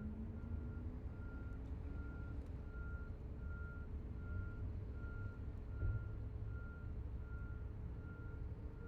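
A construction vehicle's reversing alarm beeping at one pitch, about once every three-quarters of a second, heard from inside a parked car over a low rumble of heavy engines. There is a dull thump about six seconds in.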